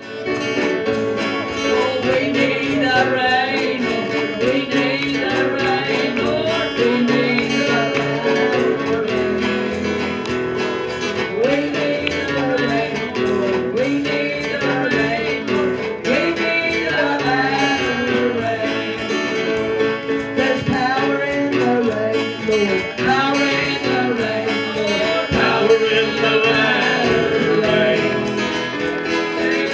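Gospel song sung with guitar accompaniment, played steadily throughout.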